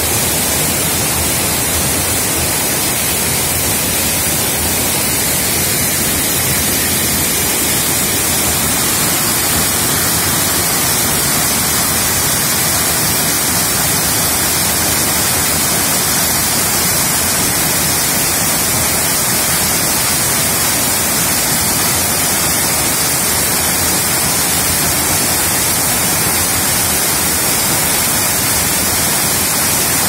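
Waterfall and rapids in heavy flow: a loud, steady rush of white water pouring over rock and churning down a stony creek channel.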